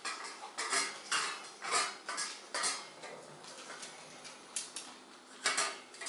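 Dogs eating from their food bowls: a metal bowl clinks and rattles in short, irregular clatters as they eat.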